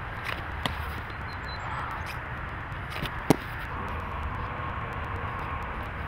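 Steady outdoor background noise with a low rumble, broken by a few sharp knocks; the loudest is a single pop about three seconds in.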